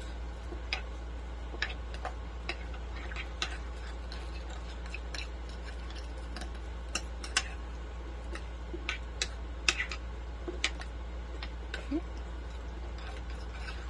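A spoon stirring a thick rice, cream-soup and water mixture in a baking dish, with irregular clicks and taps as it knocks against the dish, over a steady low hum.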